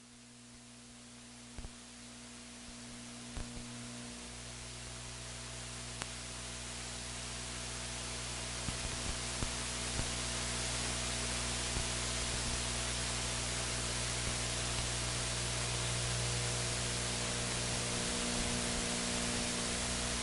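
Steady electrical hum with hiss, rising gradually from very faint over the first half and then holding steady, with a few faint clicks; no race-car engine sound is heard.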